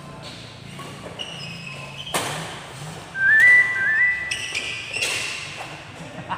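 Badminton rally: rackets striking the shuttlecock in sharp cracks, the hardest about two and five seconds in, with short high squeaks of court shoes on the wooden floor, the loudest a pair of squeaks about three to four seconds in.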